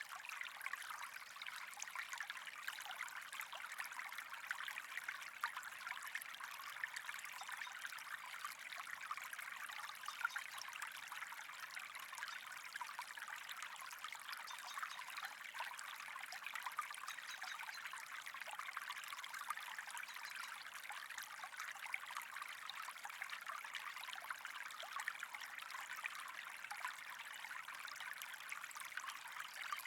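Steady trickling, running water: a continuous fine crackling splash that does not change.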